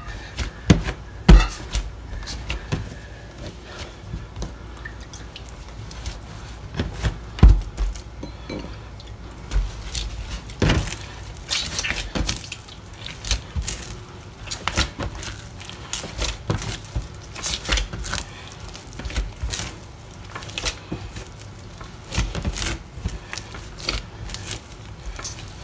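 Bread dough being kneaded by hand on a work surface: irregular thumps, slaps and knocks as the stiff bolillo dough is pushed, folded and pressed down, a few strokes louder than the rest.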